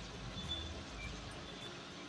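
Slotted spatula stirring sweet corn kernels in a kadai: a soft, steady scraping and rustling of kernels against the pan, over a low hum.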